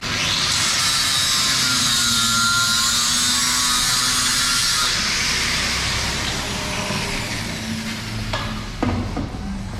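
A power tool working on the car in the workshop: a steady, high hissing whine that starts abruptly and weakens after about five seconds, followed by a couple of sharp knocks near the end.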